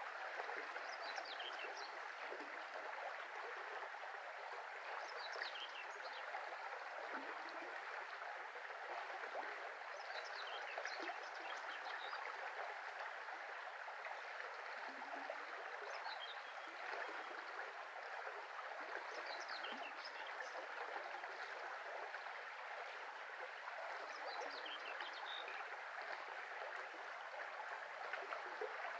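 Shallow brook flowing steadily, with short high bird chirps breaking in every few seconds.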